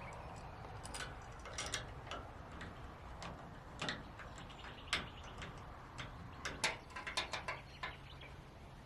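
Irregular sharp clicks and light knocks, some coming in quick runs, over a faint low steady hum.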